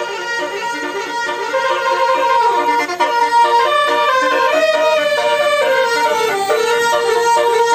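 A bus's telolet horn, a set of multi-tone air horns, playing a melody of sustained notes that step up and down.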